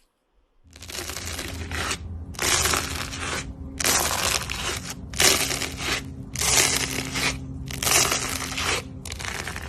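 Slime being squeezed and pressed by hand in a run of about six noisy squishes, roughly one every second and a bit, starting just under a second in.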